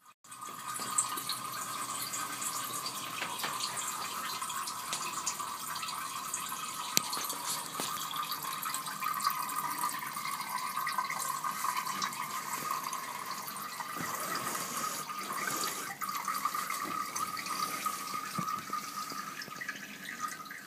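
A cat urinating into toilet bowl water: a steady trickling stream that runs on without a break and stops suddenly near the end.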